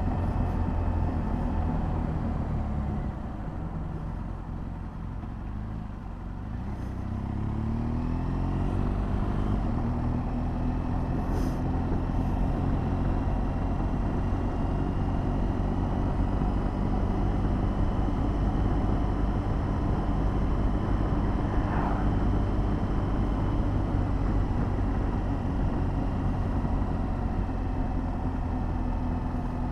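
BMW R1200GS Adventure motorcycle's boxer twin engine running on the move. It eases off and quietens a few seconds in, then rises in pitch as the bike accelerates, and settles into a steady cruise.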